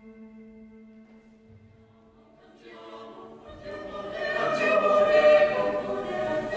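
A held ringing note with overtones fades away, then a choir comes in about three seconds in and swells to full voice.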